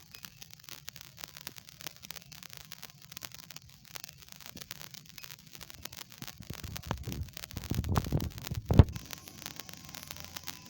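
Crackling, hissy recording noise. About two-thirds of the way through it gives way to a few seconds of low rumbling and scraping against the microphone, ending in a sharp knock.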